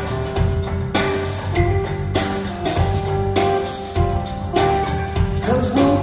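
Band playing live, with drum kit, guitar and bass under sustained notes and regular drum hits; a voice begins singing near the end.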